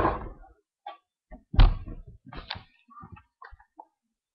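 Scattered knocks and clicks of hands handling a small Lifan 6.5 HP Honda-clone engine on a wooden deck, with one louder thump about a second and a half in. The engine is not running.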